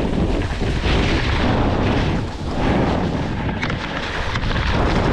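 Heavy wind buffeting on the microphone mixed with a snowboard's edges scraping over hard, icy snow during a run, swelling and dipping as the rider turns.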